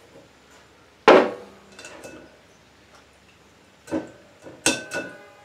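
Glass mason jar and wire mesh strainer knocking against a glass bowl while soaked pecans are strained out of bourbon. There is a sharp knock about a second in, a few faint clinks, then two ringing clinks of the strainer on the bowl near the end.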